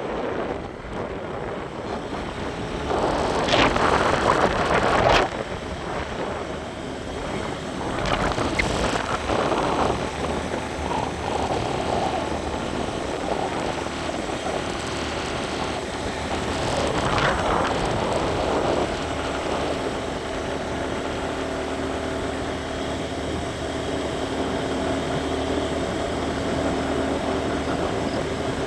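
Vehicle engine running under road and wind noise, with louder rushes of noise about three, eight and seventeen seconds in; a steady engine hum stands out in the second half.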